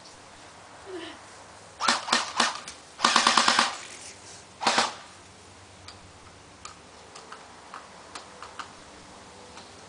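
Airsoft guns firing: a few quick single shots about two seconds in, then a rapid burst of about eight shots, one more shot a second later, and faint scattered ticks after that.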